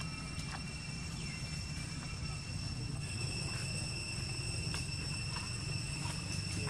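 Outdoor background noise: a steady low rumble under a constant high-pitched whine, with a few faint scattered clicks.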